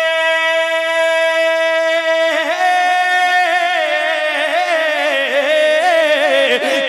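Male naat reciter singing unaccompanied, holding one long steady note, then a couple of seconds in breaking into wavering, ornamented runs.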